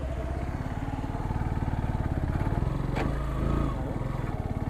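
Yamaha motorcycle engine running as the bike rides along, getting louder about a second in as it accelerates, with a single sharp click about three seconds in.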